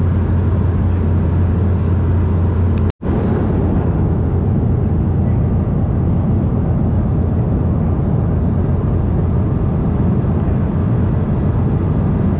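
Steady in-flight cabin noise of an Embraer E190 airliner: low drone of its GE CF34 turbofans with the rush of airflow over the fuselage. The sound cuts out for a moment about three seconds in, then carries on.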